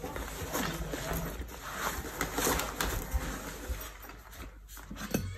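Handling noise from packing a fabric school backpack: rustling cloth and soft clicks and knocks as items go in, with a few short, soft low hums.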